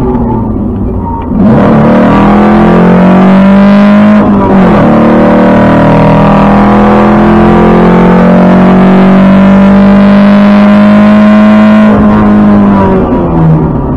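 Lancia Fulvia's narrow-angle V4 engine heard onboard under hard acceleration. It is quieter off the throttle at first, then pulls hard with rising revs from about a second and a half in. The revs drop sharply around four seconds in at a gear change, it pulls steadily again, and it eases off briefly near the end before picking up.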